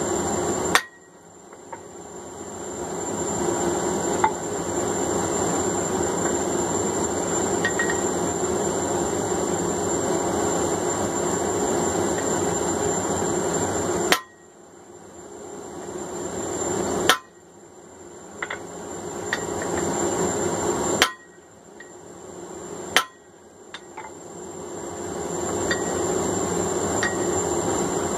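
A blacksmith's hammer strikes steel on the anvil in a few single sharp blows: one about a second in and four spread through the second half. Each blow stands out over a steady rumbling background.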